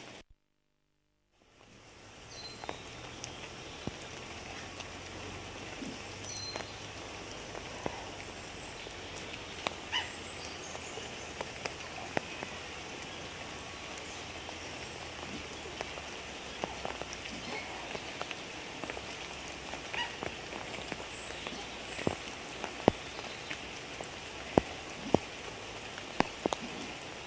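Steady rain falling, with sharp single drop taps scattered through. It begins after about a second and a half of near silence.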